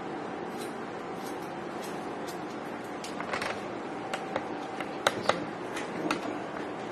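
Electric hair clippers running with a steady buzz, with a cluster of sharp clicks and snips in the middle.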